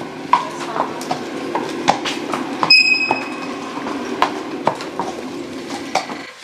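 A horse's hooves clip-clopping at a walk on a paved stable floor, an irregular knock about twice a second. A brief metallic ring sounds nearly three seconds in.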